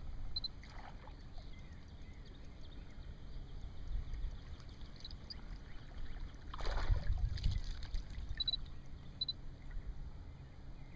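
Wind and water noise around a small fishing boat on open water: a steady low rumble, with a louder rush lasting about a second a little past the middle.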